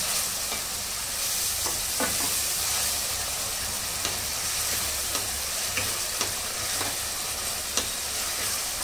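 Chopped tomatoes, onion, green onion and green garlic sizzling in oil in a kadai while being stirred with a spatula, with scattered scrapes and taps of the spatula against the pan. This is the tomato-and-onion base being sautéed.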